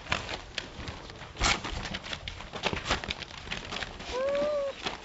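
Rottweiler–Australian Shepherd mix puppies scrambling about on newspaper, with a run of rustles and paw clicks and a louder knock about a second and a half in. Near the end one puppy gives a brief whine that rises and falls.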